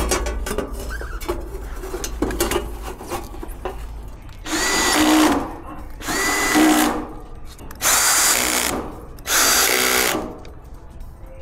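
Ryobi cordless drill/driver driving the sheet-metal screws that hold an AC condenser's cover panel, in four short runs of under a second each in the second half, each whine rising as the motor spins up. Before them, knocks and rattles of the metal panel being set in place.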